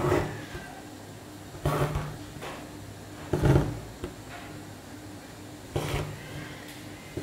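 Needle and thread being pulled through taut embroidery fabric, a short rasping thump with each stitch, one every one and a half to two seconds, over a low steady hum.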